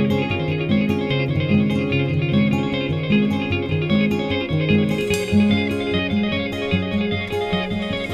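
Background instrumental music led by plucked guitar, with a moving bass line.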